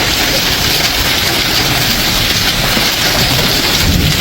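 Hailstones pelting down on cars and the ground in a dense, steady clatter.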